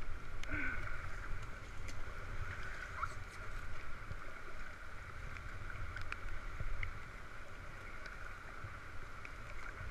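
Water rushing and lapping around an inflatable raft as it moves down a fast river, over a steady low rumble, with a few faint knocks.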